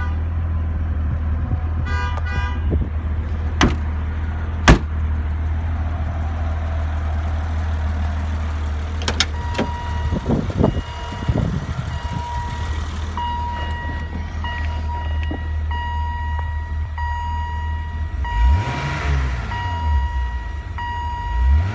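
1990 BMW 325i's 2.5-litre straight-six idling steadily, with two sharp knocks a few seconds in. From about ten seconds in a high electronic warning tone sounds on and off, and near the end the engine is blipped twice, the revs rising and falling each time.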